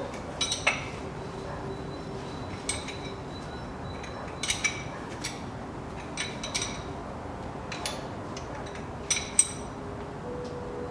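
A steel hand tool clinking against the plug and housing of a front axle differential as the plug is tightened: about a dozen short, light metallic clinks at irregular intervals, several in quick pairs.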